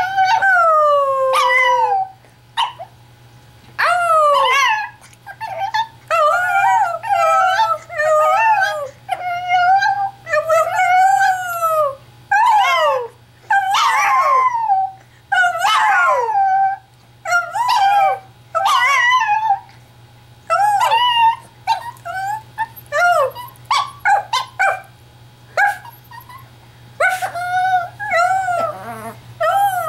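Chihuahua howling in a long series of high, wavering calls, some drawn out and falling in pitch, others short and broken up like yips and whimpers.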